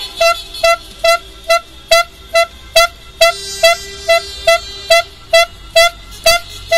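A car horn honking in short, evenly spaced beeps, a little over two a second, with a longer horn tone held under it around the middle. This is celebratory honking after a football victory.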